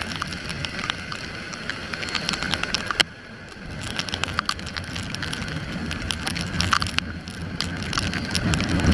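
Heavy typhoon rain and wind noise on a camera mounted on a motorcycle riding along a wet road, over a low rumble. Raindrops strike the camera as many sharp ticks, with one hard knock about three seconds in.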